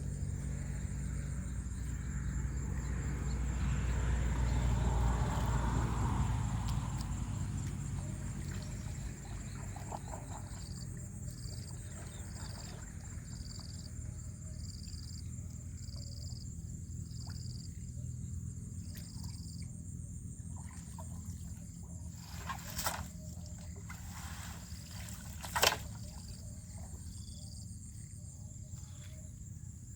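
Outdoor rural ambience: insects shrilling steadily at a high pitch throughout. A low rumbling noise swells and fades over the first several seconds, a run of short high chirps about once a second follows in the middle, and two sharp knocks come near the end.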